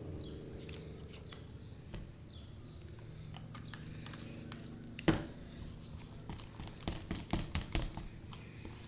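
Sticky PVA-glue slime being stirred and pulled while still not fully activated, giving scattered wet clicks and smacks, a sharp one about five seconds in and a quick run of them a couple of seconds later, over a faint steady hum.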